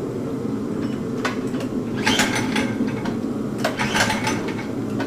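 Predator single-cylinder minibike engine being pull-started: two quick recoil-starter pulls, about two seconds in and again near four seconds, each a rattling, ratcheting whir as the engine cranks over and tries to start.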